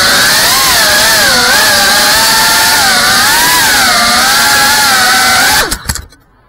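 GEPRC Cinelog 35 cinewhoop's brushless motors and ducted propellers whining, the pitch wavering up and down with the throttle. Near the end the whine glides down and cuts off with a few clicks as the drone comes down onto the ground and the motors stop.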